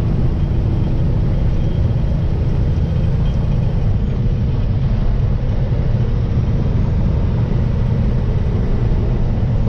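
Steady low rumble of a vehicle driving, heard from inside the cab: engine and road noise with no change in pace.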